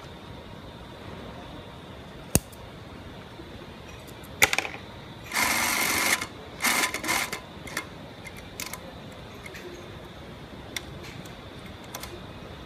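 SEWSTAR CW-3205 cylinder-bed zigzag sewing machine stitching elastic tape onto mesh shoe lining in short runs. A sharp click comes a little over two seconds in, then a brief burst, a steady run of stitching lasting about a second, and two or three shorter bursts, with a few light clicks later.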